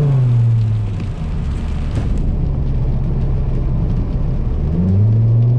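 2004 Volvo S60R's turbocharged inline five-cylinder with a straight-piped exhaust, heard from inside the cabin while driving. Its note falls away in the first second to a low rumble, then climbs again near the end as the car accelerates.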